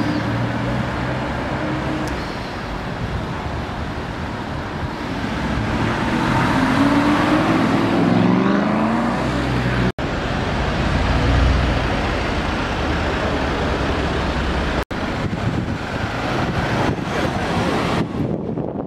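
City street traffic: a steady wash of passing cars and engines, with one engine rising in pitch as it accelerates for a few seconds partway through. The sound cuts out for an instant twice.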